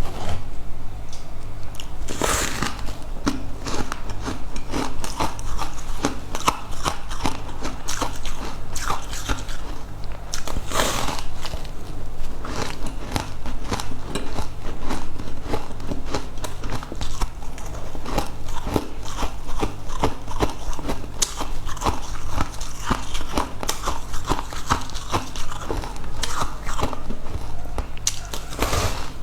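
Close-miked eating: fried food bitten and chewed, with dense crisp crackles and several louder crunching bites, over a steady low hum.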